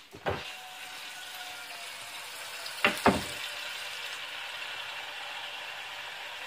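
Kitchen faucet running, tap water pouring steadily into an enamel saucepan held under it as it fills. A couple of clunks come near the start and louder ones about three seconds in.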